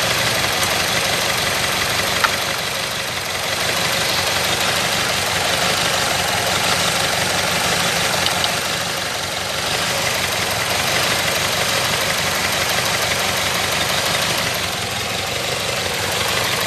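Ford Escape engine running steadily at idle, while it is being diagnosed for a misfire on cylinders 1 and 4 blamed on an intermittent current supply. A single sharp click sounds about two seconds in.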